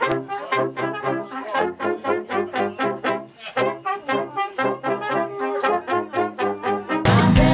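Small brass band of tubas, trombone and horns playing a tune with a steady beat, the tuba bass stepping under short repeated notes at about three a second. About seven seconds in it cuts off abruptly to louder, denser music.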